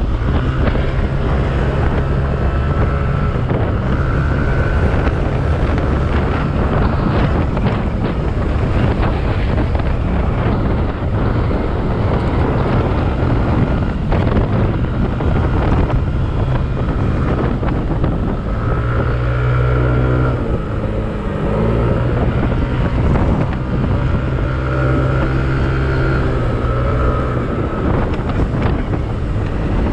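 Yamaha Aerox scooter's single-cylinder engine running steadily at a cruise of about 70–75 km/h, with heavy wind rushing over the microphone. The engine note shifts a little twice in the second half.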